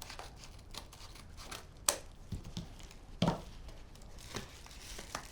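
Rustling and crinkling of packaging or material being handled, with a few sharp clicks and knocks; the loudest comes about two seconds in, and another a little after three seconds.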